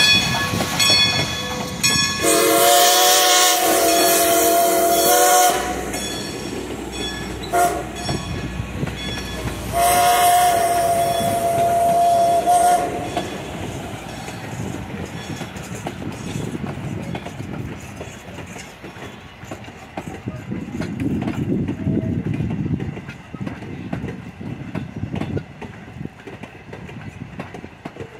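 Steam whistle of ex-Great Western 2-10-0 locomotive #90 blowing long, long, short, long, the grade-crossing signal, as the locomotive pulls out. After the last blast its passenger coaches roll past, wheels clicking over the rail joints, fading as the train moves away.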